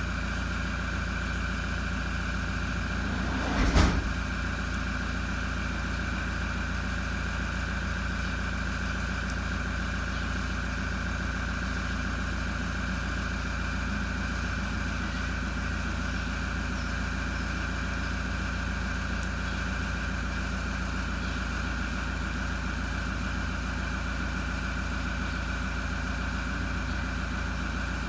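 Steady mechanical hum, unchanging throughout, with a short thump about four seconds in.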